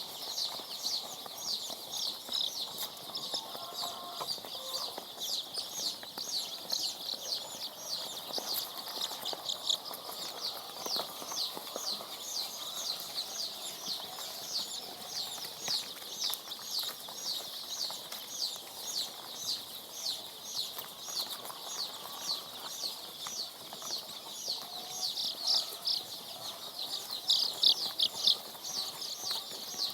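A flock of three-day-old layer chicks peeping without a break: many short, high chirps overlapping several times a second, with a louder cluster near the end.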